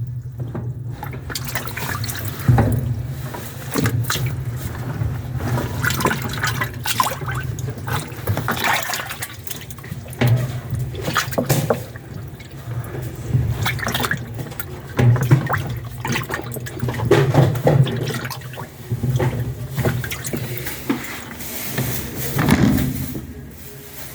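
Washing machine with water in the tub, sloshing and splashing irregularly over a steady low hum.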